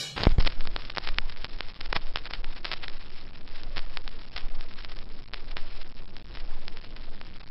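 Footsteps of several people walking on a dirt woodland path, irregular crunches and snaps of dry leaves and twigs underfoot, over a low rumble of camera handling and wind.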